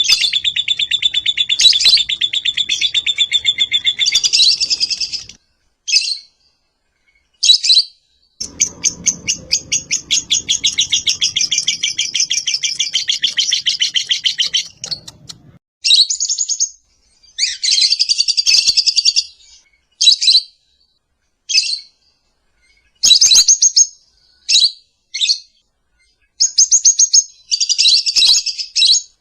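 Lovebird chattering in long runs of rapid, shrill, high-pitched notes, one to about four seconds in and another from about eight to fifteen seconds in, broken by short separate call bursts and pauses.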